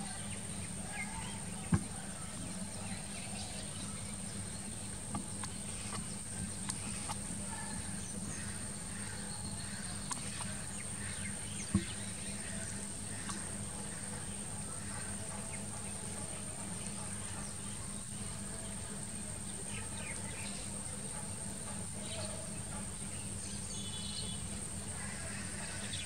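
Outdoor pond ambience: a steady high-pitched insect drone with scattered faint bird chirps. Two sharp clicks stand out, about two seconds in and again near twelve seconds.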